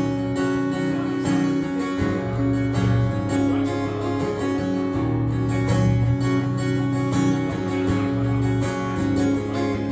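Instrumental break in a live country-rock song: strummed acoustic guitar playing chords at a steady rhythm, with no singing.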